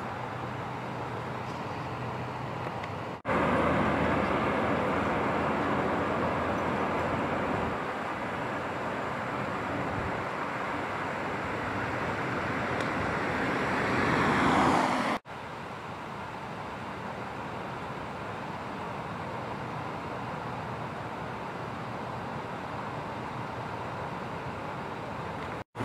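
Road traffic noise: a steady rush of vehicles, louder from a few seconds in, swelling as a car passes close by and cutting off abruptly about halfway through, then a quieter steady rush.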